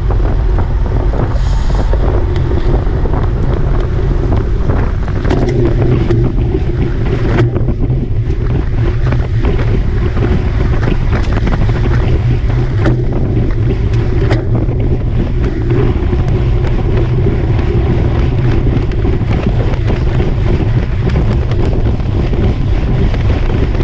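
Heavy wind noise buffeting the microphone: a loud, steady rush with a low rumble and a steady hum underneath.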